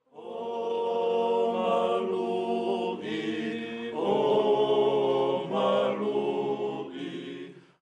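Opening music of sustained, chant-like group singing: long held notes that shift in pitch every second or two, fading out near the end.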